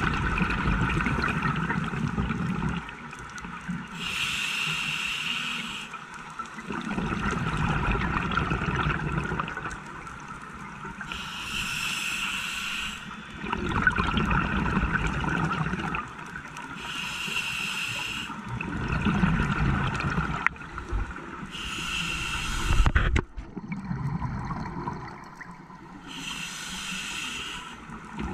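Scuba diver breathing through a regulator underwater: five hissing inhalations of about two seconds each, a breath every five or six seconds, alternating with the low rumbling bubble of each exhalation. A single sharp knock comes about two-thirds of the way through.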